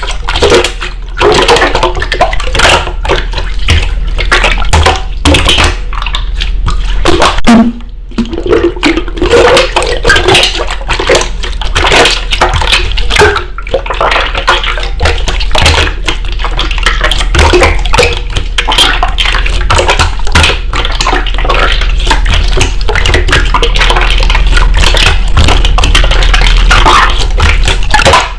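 Slime being squeezed and kneaded by hand: continuous wet squelching with dense crackling and small pops.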